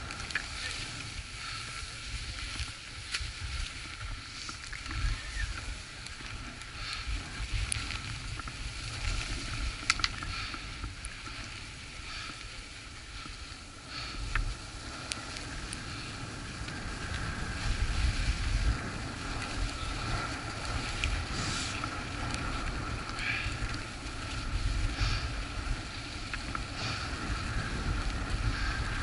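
Skis hissing and scraping over packed snow at speed, with wind rumbling on the microphone and occasional clicks.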